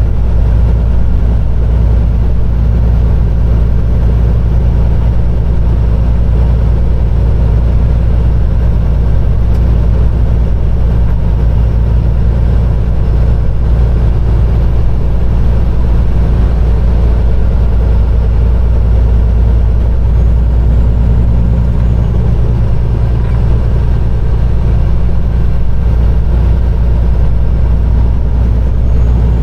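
Peterbilt 389 semi truck's diesel engine running steadily at highway speed, with a constant low drone and road noise and no change in pitch.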